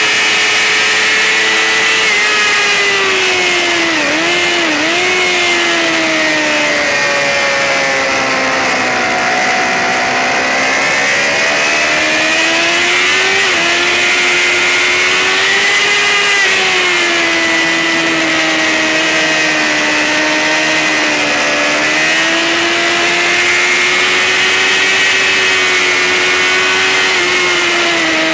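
A sportbike's engine at high revs on a race track, running without a break, its pitch rising and falling as the rider accelerates, shifts and brakes. There are two quick dips in pitch about four seconds in, and a constant rushing noise underneath.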